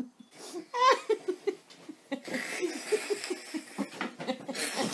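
Hearty laughter: a high squeal about a second in, then a fast run of short laughs.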